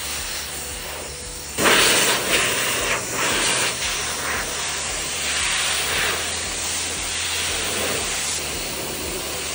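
Self-service car-wash air dryer blowing a steady rush of air, stepping up louder about a second and a half in, with a low hum beneath.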